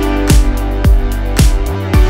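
Background music with a steady beat: a deep, booming kick drum about twice a second over sustained chords.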